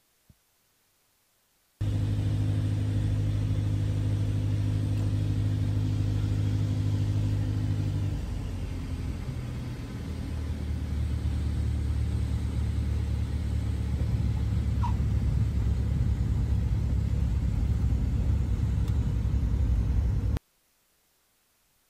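Mooney M20E's four-cylinder Lycoming engine and propeller droning steadily. The pitch drops abruptly about eight seconds in, and the drone then grows slowly louder before cutting off suddenly near the end.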